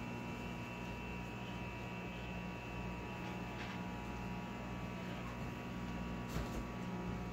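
Microwave oven running with a steady hum, with one brief click about six seconds in.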